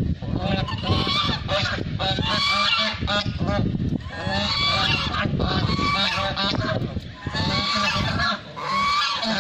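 Several large white domestic ducks calling loudly, with many rapid, overlapping calls in runs broken by brief pauses.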